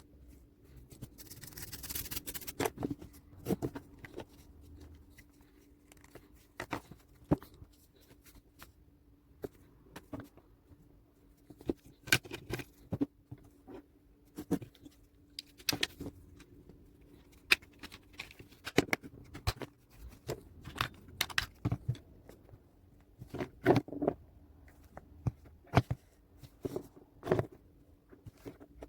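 Irregular sharp clicks and taps of a remote control's plastic case and buttons being handled, with a short hiss about two seconds in, over a faint steady hum.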